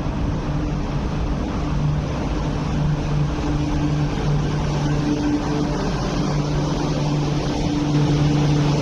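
MTR Q-train, an electric metro train built by CRRC Qingdao Sifang, pulling into the platform and braking to a stop. Its rolling noise runs throughout, with a steady low hum that drops in and out.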